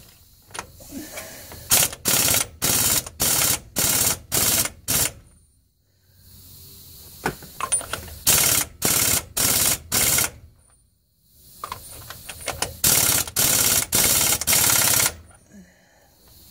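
Impact wrench on a socket driving the front differential pinion nut in short trigger pulls: three runs of about five to seven quick hammering bursts, with pauses between, as the nut is eased up to its alignment marks.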